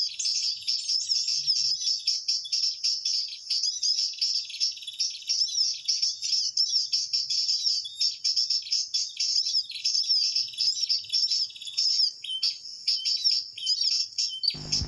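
Perenjak lumut birdcall used as a trapping lure: fast, unbroken high-pitched chirps and trills.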